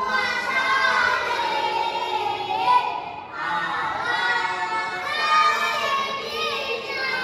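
Children singing together in high voices, with a short break about three seconds in.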